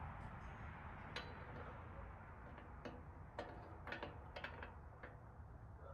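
Scattered light clicks and taps of a hand tool against the steel frame of a snowplow, about eight of them at irregular spacing, mostly in the middle of the stretch, over a faint steady low background noise.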